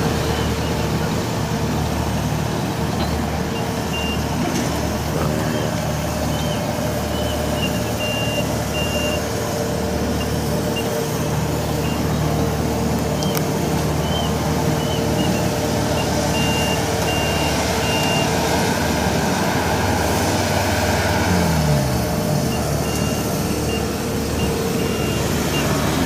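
Kubota DC60 combine harvester's diesel engine running steadily as the crawler backs up on its tracks. A high warning beeper sounds on and off over it.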